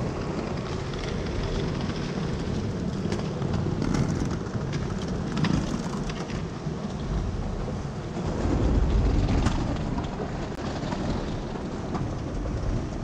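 Steady background noise of a busy airport terminal hall, with a few faint clicks scattered through it. A low rumble swells for a couple of seconds about two-thirds of the way through.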